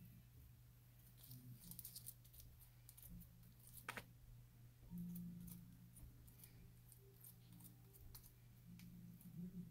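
Faint, scattered small clicks and crackles over a low steady hum, with the sharpest click about four seconds in.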